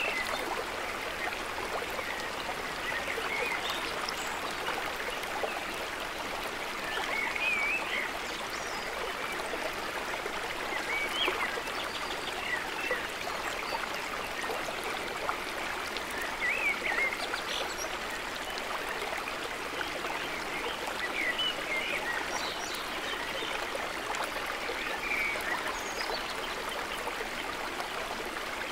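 Shallow woodland stream running over rocks, a steady rushing babble. Brief high bird chirps come through every few seconds.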